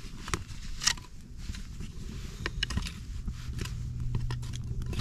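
Newly lit campfire of split kindling crackling with scattered, irregular sharp pops and clicks. Near the end, a piece of split wood is handled and set against the burning stack.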